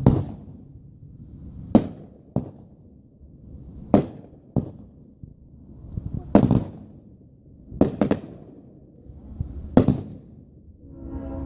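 Consumer aerial fireworks firing: loud bangs about one every two seconds, some in close pairs, each with a hiss building for about a second before it. Near the end a short whistling tone comes in before the next bang.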